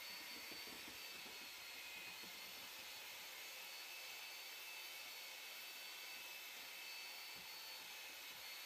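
Handheld electric drill with a paddle mixer running steadily, churning aircrete slurry in a plastic bin: a faint, even motor hiss with a thin high whine.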